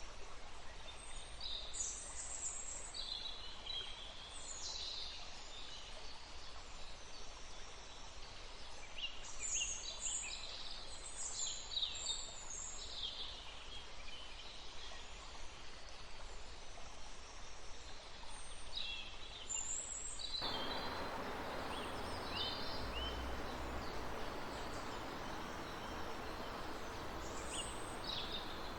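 Forest birds chirping and whistling in short, varied calls over the steady rush of a running stream. About two-thirds of the way through, the water noise suddenly becomes louder and fuller.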